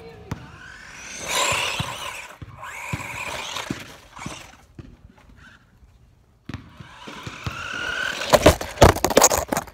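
RC monster truck's motor whining and wavering in pitch as it speeds away, dropping off about six seconds in, then whining up again as it races back toward the camera. Near the end a rapid clatter of loud knocks as it reaches the camera.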